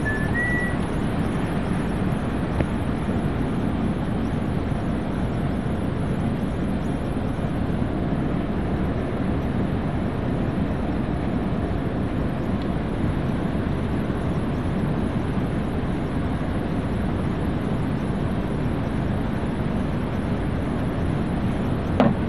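Steady outdoor background noise, heaviest in the low end with a faint high hiss, like wind and rooftop machinery. Near the end a single sharp snap as diagonal cutting pliers close on a motor lead wire.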